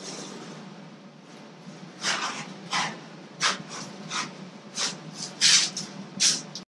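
Blue painter's tape being peeled off the hull of a wooden strip-built kayak in a series of short ripping pulls, about seven of them roughly every two-thirds of a second, starting about two seconds in.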